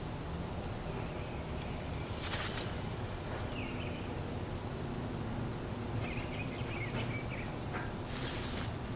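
Outdoor ambience: a steady low background with faint bird chirps. Two short hissing swishes come about two seconds in and again near the end.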